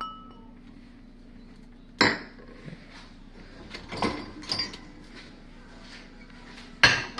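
Dishes being unloaded from a dishwasher, clinking and knocking against each other and the rack: a short ringing clink at the start, a sharp knock about two seconds in, a few clatters around four seconds, and a loud knock near the end.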